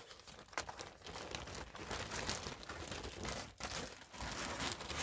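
Rustling and crinkling with scattered light knocks: handling noise from an old book being moved and put away close to the microphone.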